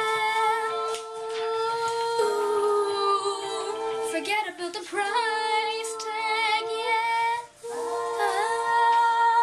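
A boy's high, unbroken voice singing long held wordless notes, unaccompanied, the pitch wavering in places. The notes break off briefly about two, four and a half and seven and a half seconds in.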